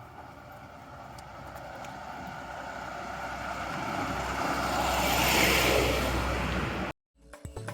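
A passing vehicle, its tyre and engine noise swelling steadily as it approaches, then cut off abruptly near the end.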